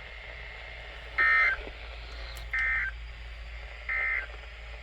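Three short bursts of EAS (SAME) digital data over NOAA Weather Radio, about a second and a half apart: the end-of-message code that closes a special marine warning. Steady faint radio hiss and hum sit underneath.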